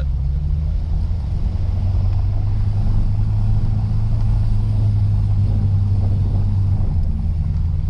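Lexus RC F's 5.0-litre V8 holding steady low revs while driving slowly, a steady low drone mixed with rough road rumble from the tyres.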